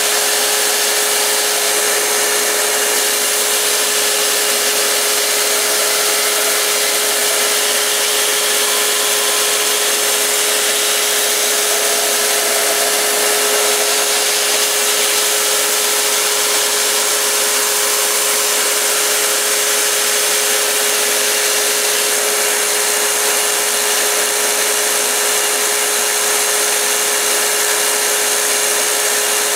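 Belt grinder running a 220-grit belt in slack-belt mode while a knife edge is held and worked against the belt: a steady grinding hiss over a steady hum. This is the edge being ground down to zero, raising a burr first on one side and then the other.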